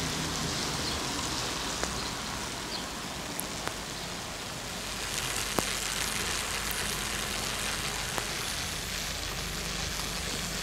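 Steady rain falling onto flooded road and puddles of standing water, an even hiss with a few sharper single drop ticks now and then.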